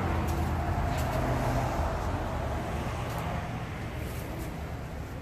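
Traffic noise from a busy highway: a steady low rush of passing cars and trucks, growing a little fainter near the end.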